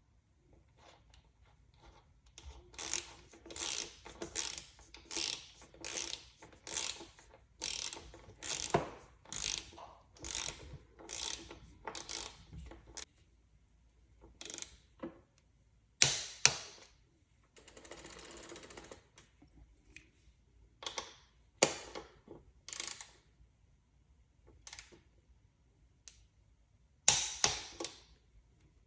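Ratchet wrench working a bicycle crank arm bolt in quick back-and-forth strokes, each stroke a short burst of pawl clicks, followed by scattered single clicks and a few sharp loud clicks. This is the crank bolt being tightened after it was found loose and rubbing the frame.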